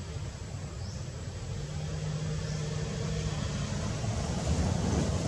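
A motor vehicle's engine rumbling, with a steady low hum, growing louder toward the end.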